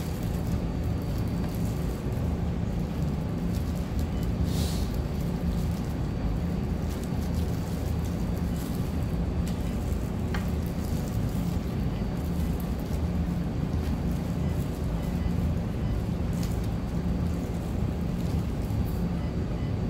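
Steady low rumble of room noise, with a few faint rustles and clicks from plastic-gloved hands handling fried chicken.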